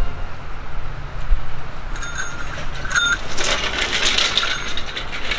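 A bicycle bell rings twice, about two and three seconds in, then the bicycle rattles past on a gravel dirt track.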